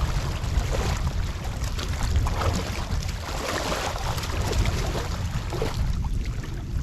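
Floodwater churning and splashing, with a steady low rumble of wind on the microphone.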